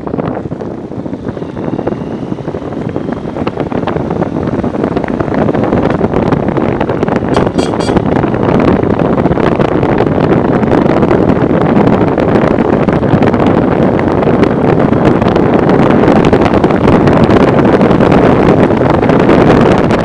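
Wind rushing hard against the microphone of a moving motorcycle, with the rumble of the bike and the dirt road under it. It is a steady noise that builds louder over the first several seconds.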